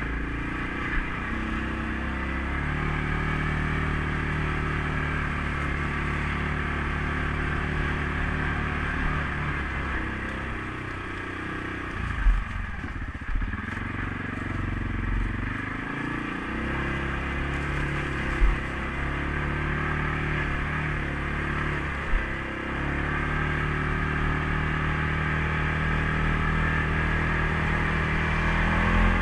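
CFMOTO CForce 500S ATV's single-cylinder engine running while riding. It holds a steady pitch, dips and changes revs about halfway through, then steadies again. A few sharp knocks come from the machine.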